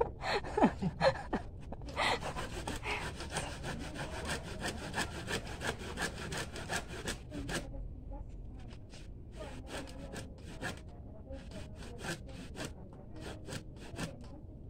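A hand saw cutting through wood at the base of a tree trunk: a run of quick, regular back-and-forth strokes, then slower, spaced strokes in the second half. A few short, loud falling squeals come just before the sawing begins.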